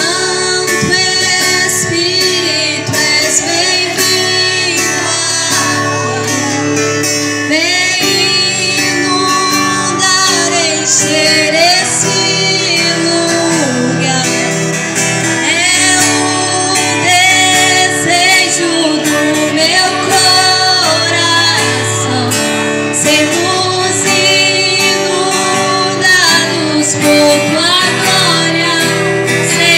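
A young girl singing a Portuguese-language worship song into a microphone through a PA system, backed live by keyboard and guitar.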